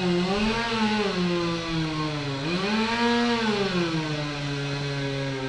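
An engine revved twice, its pitch rising and falling each time, then running steadily at a lower pitch from about two-thirds of the way in.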